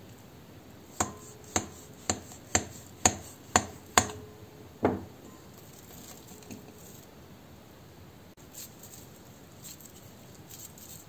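Knife blade clinking against the bottom of a glass bowl as it cuts down through a ball of pastry dough: seven sharp taps about two a second, then one more with a short ring. Faint soft sounds of the dough halves being handled follow.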